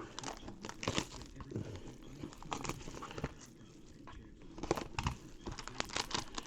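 Hockey card packs and cards being handled: plastic wrapper crinkling and tearing with irregular small clicks and rustles as cards are flipped through.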